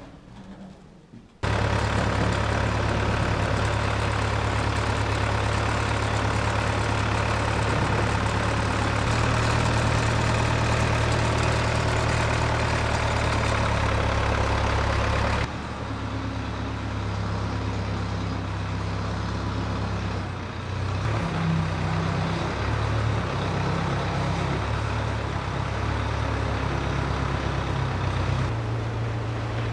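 An engine running steadily, coming in abruptly about a second and a half in. Its note shifts suddenly twice, with the low hum wavering in the later part.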